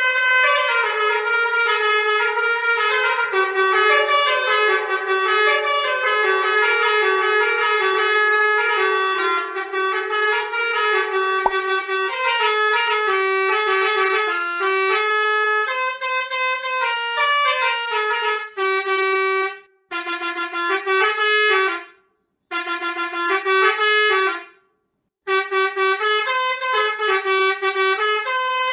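Pianika (melodica) playing a telolet basuri bus-horn melody in short stepping notes, stopping briefly three times in the last third.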